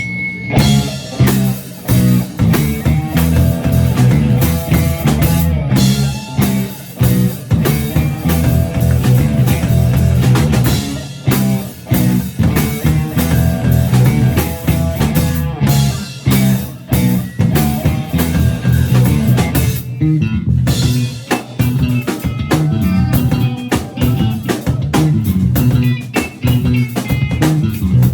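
Live rock band playing: electric guitar, bass and drum kit, loud and steady with a driving beat.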